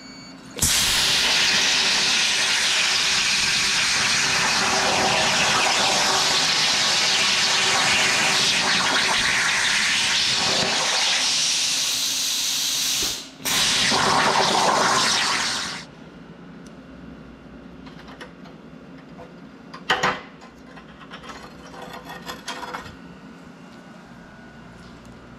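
CNC plasma cutter torch cutting quarter-inch steel plate: a loud, steady hiss starts about half a second in. It breaks off briefly near 13 seconds, fires again for a couple of seconds, and stops about 16 seconds in. After that there is only a low background with a couple of short clicks.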